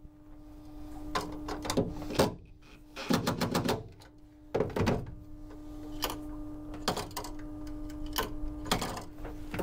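Cordless DeWalt impact driver driving screws to mount a float switch on the fibreglass floor of a boat's bilge: short bursts of rapid ticking hammering, the longest about three seconds in, among separate knocks and clunks of the tool and parts being handled, over a faint steady hum.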